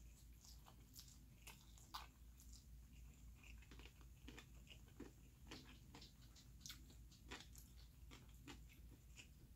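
Faint close-up chewing and mouth clicks of a person eating ramen noodles: a steady scatter of soft smacks, a few a second.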